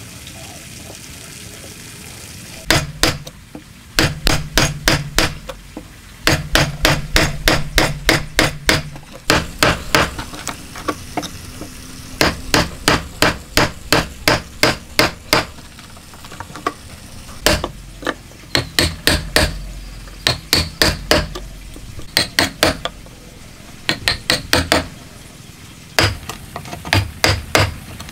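Wooden mallet striking a wood chisel, chopping out a slot in a timber beam: quick runs of sharp knocks, about four or five a second, with short pauses between runs, starting about three seconds in.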